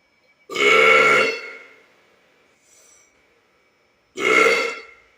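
A man burping loudly twice, on purpose: a long burp of about a second starting half a second in, and a shorter one near the end.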